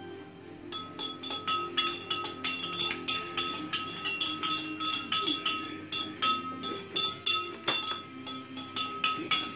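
Metal spoon stirring briskly in a cup of milkshake, clinking against the side several times a second with a ringing note, starting about a second in.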